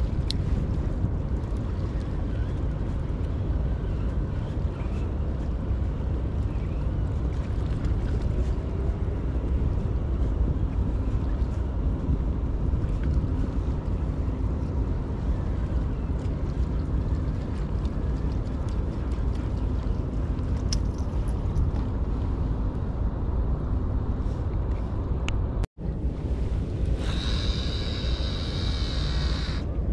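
Wind buffeting the microphone, a steady low rumble. Near the end there is a brief high-pitched whirr from the multiplier fishing reel.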